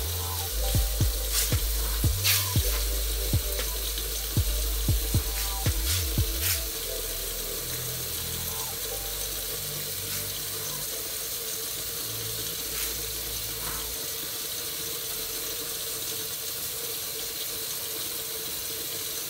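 A silicone spatula knocking and scraping around a stainless steel skillet as it stirs a thickening flour-and-water gravy, for about the first six seconds. After that, a steady hiss of the gravy sizzling and simmering in the pan.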